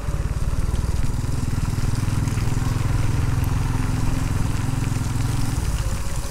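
Honda Pop 110i's small single-cylinder four-stroke engine running steadily under way.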